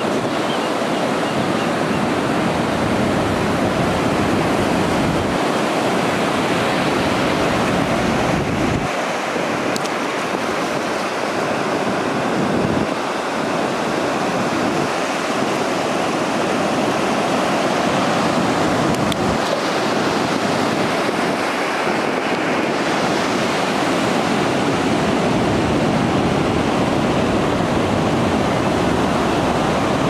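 Ocean surf breaking and washing up the beach in a steady, continuous rush.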